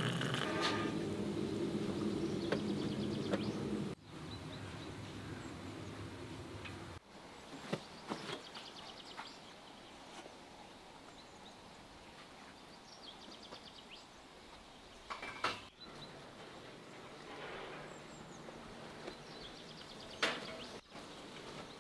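Water running from a samovar's tap into a glass teapot, which stops about four seconds in. After that comes quiet outdoor background with birds chirping and a few light knocks.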